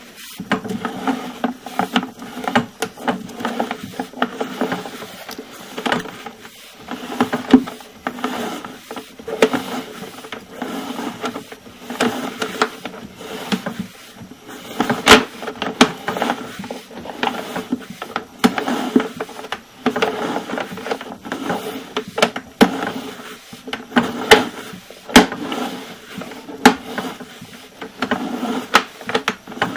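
Sewer line equipment working in a drain: a cable rattling and knocking, with frequent sharp clicks over a steady hum.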